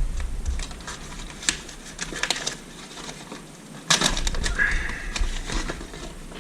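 Cardboard insulation with a thin aluminum foil backing being handled and pulled out of a disassembled stereo equalizer: scattered crinkles and clicks, with a louder clatter about four seconds in.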